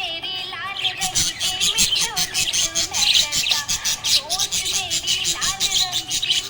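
Budgerigar chirping and twittering rapidly and continuously, mixed with music that carries a gliding sung melody.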